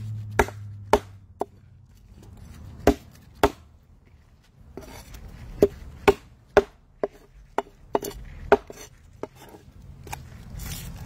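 Heavy Chinese cleaver chopping a whole mutton snapper on a wooden cutting board: a string of sharp chops at an uneven pace, with a pause of about two seconds partway through.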